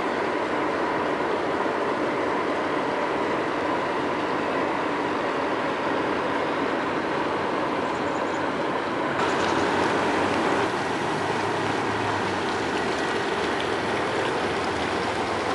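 Fountain water splashing and spilling over a stone ledge into a pool: a steady rushing noise that turns brighter and a little louder about nine seconds in.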